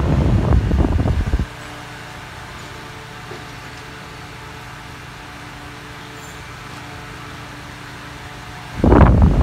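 Holmes Blizzard desk fan running: its airflow buffets the microphone with loud wind noise for about the first second and a half and again near the end. In between it drops to a steady, quieter motor hum with a few steady tones.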